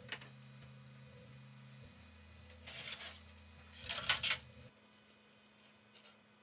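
Small 3D-printed plastic parts handled on a workbench: a click, then two short clusters of light clattering and rubbing, over a faint steady hum that drops out partway through.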